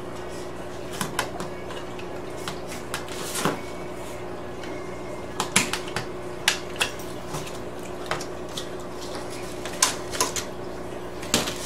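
Utility knife cutting through twin-wall polycarbonate sheet along a metal ruler: irregular sharp clicks and short scrapes as the blade goes through the sheet's ribs, and the plastic sheet clattering as it is handled near the end. A steady low hum runs underneath.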